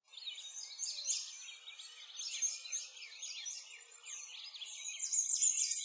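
A chorus of many birds chirping at once, quick high overlapping calls with no pause between them, growing louder near the end.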